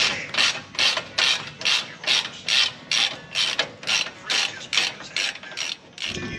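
Socket ratchet wrench worked back and forth on a bolt, its pawl clicking on each back-swing. The strokes come quick and even, about two and a half a second, some fifteen in all.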